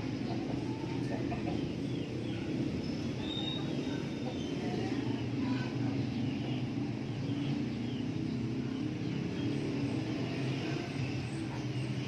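Native chickens calling with short, scattered chirps and clucks over a steady low rumble.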